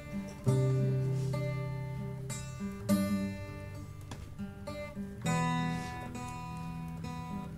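Acoustic guitar playing an intro: three strummed chords about two and a half seconds apart, each left to ring.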